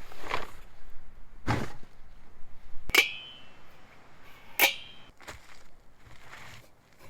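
Two light metallic clinks, each ringing briefly, about three seconds in and again a second and a half later, among softer knocks and handling sounds.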